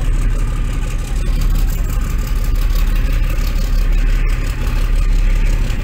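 Steady low rumble of a boat's engine running, heard from on board.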